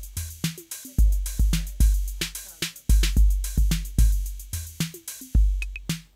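Background music with a steady electronic drum beat: deep bass-drum hits about every half second with sharp clicks between them.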